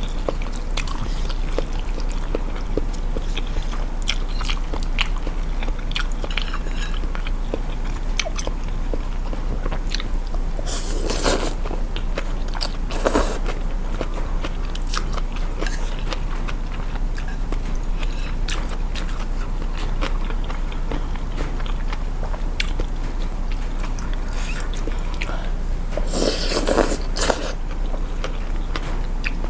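Close-miked eating sounds of someone eating thin rice noodle soup with stewed beef: steady chewing with many small mouth clicks and smacks, and a few louder noisy bursts about a third of the way in and again near the end.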